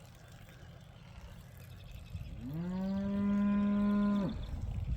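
A cow moos once: a single long call lasting about two seconds, starting about two seconds in, rising at the start, then held steady before it breaks off.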